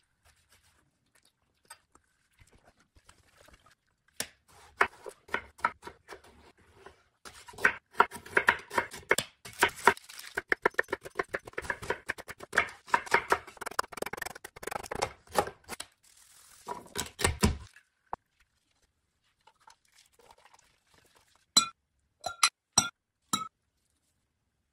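Chef's knife slicing and chopping an onion on a plastic cutting board: a long run of quick, crisp crunching cuts. Near the end come a few sharp, ringing clinks.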